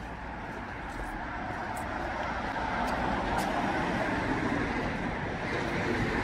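Road traffic noise on a street: a steady rush that grows louder over the first few seconds and then holds.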